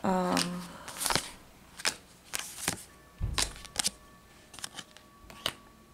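Tarot cards being handled and turned over: a string of light rustles and taps, scattered irregularly, a few of them close together.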